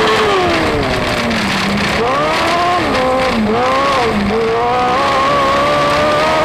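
Dwarf race car's engine heard from onboard: the revs fall for about a second and a half as the driver lifts for the turn, rise and dip twice through the corner, then climb and hold high as it accelerates out onto the straight.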